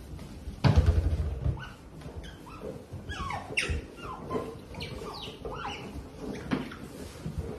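A group of otters chirping, many short high calls that rise and fall in pitch, coming thick and fast. A heavy low thump near the start is the loudest sound.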